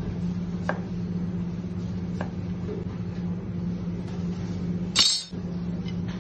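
Chef's knife slicing a lemon on a plastic cutting board: a couple of soft knocks as the blade meets the board, over a steady low hum. About five seconds in there is one brief loud noise.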